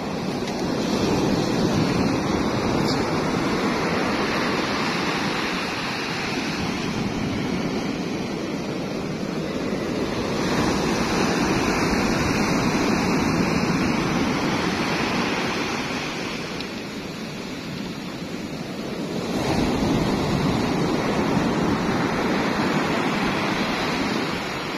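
Sea waves and wind on the microphone: a loud, steady rushing noise that swells three times and eases in between.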